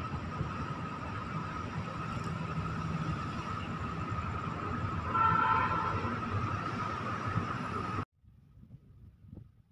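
Steady outdoor night background noise with a steady high-pitched tone running through it. The tone swells briefly past the middle, then everything cuts off abruptly about eight seconds in.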